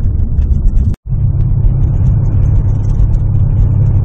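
A car's engine running with a steady, loud low rumble. It cuts out for a moment about a second in, then carries on.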